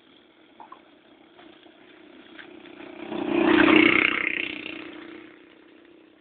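Motor vehicle engine hum throughout, with a much louder engine swelling up about three seconds in and fading away over the next two seconds, like a vehicle passing close by.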